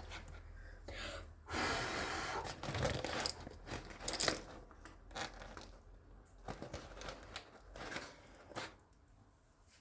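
Packaging being handled and crinkled: a rustle of about a second near the start, then scattered small clicks and rustles.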